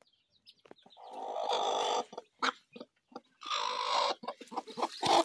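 Broody hen giving two drawn-out, harsh calls about two seconds apart, with short clicks between them, the protest of a sitting hen disturbed by a hand reaching under her on the eggs.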